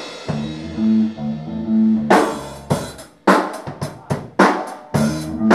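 Rock band playing live: low held guitar notes for about two seconds, then the drum kit alone hits a string of separate strikes with gaps between them, and the full band comes back in near the end.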